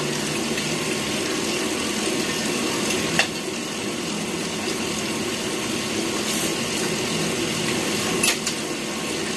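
Steady background hiss under the clink of spoons and forks on plates: one sharp click about three seconds in and another near the end.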